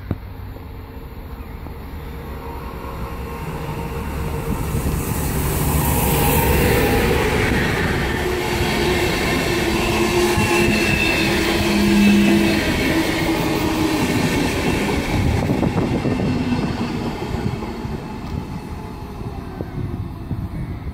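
A locomotive-hauled passenger train of Intercity coaches passing through a station. Its rolling wheel-on-rail noise builds as it approaches, is loudest as the coaches run past, then fades.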